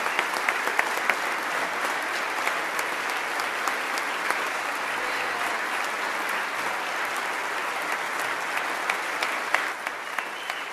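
Large audience applauding: dense, steady clapping that thins slightly near the end.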